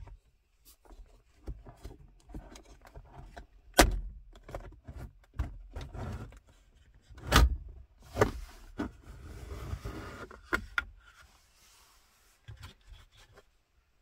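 Plastic centre console trim around a Volkswagen Polo Mk4's handbrake lever being unclipped and lifted off: a run of clicks and knocks with two loud, sharp snaps, one about four seconds in and one about seven seconds in, then scraping and rustling of plastic, with a few last clicks near the end.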